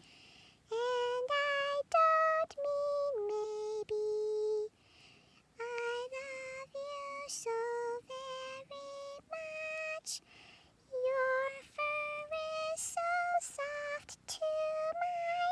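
A high female voice singing a slow, unaccompanied melody in short, steady held notes with brief gaps between phrases.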